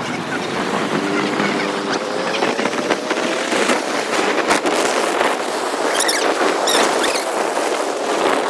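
Wind rushing over the microphone on a moving motorcycle, with a faint engine note rising in pitch from about a second in. A few short high squeaks come just past the middle.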